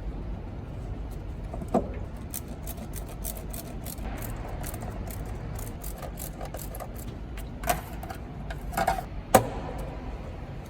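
Hand work on a car engine: parts and tools being handled during ignition coil installation, giving several sharp clicks and knocks, the loudest near the end, with faint ticking between, over a steady low hum.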